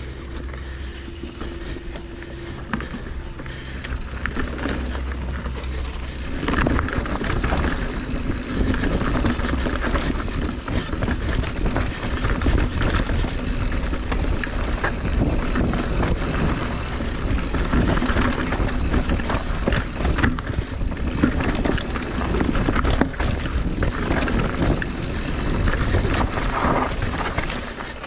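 Mountain bike descending a rough dirt and rock trail, heard from on the bike: tyres rolling and the bike rattling and clattering over bumps. It grows louder and busier about six seconds in.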